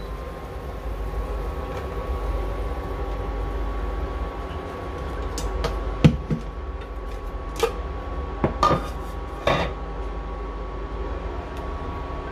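Induction cooktop humming steadily, with a few sharp metal clanks from a stainless steel stockpot being shifted on its glass top, about six to nine and a half seconds in.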